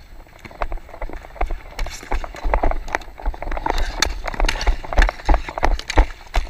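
Rapid, irregular footfalls of a dek hockey player running on plastic sport-court tiles, heard from a body-worn camera, mixed with the clack of the stick on the ball and the court.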